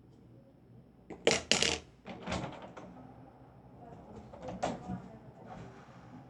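A few sharp knocks and clatters, the two loudest close together about a second in, then softer ones.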